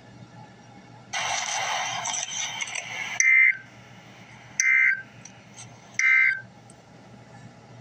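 About two seconds of hiss, then three short, loud two-tone data bursts about a second and a half apart. These are the Emergency Alert System's end-of-message (EOM) SAME code bursts, marking the end of the alert.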